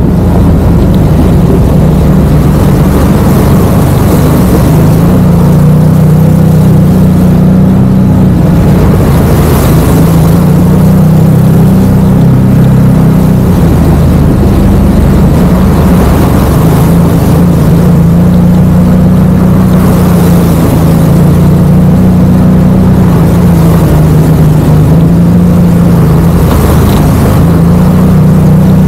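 Side-by-side UTV engine running steadily, its pitch rising and falling slightly with the throttle.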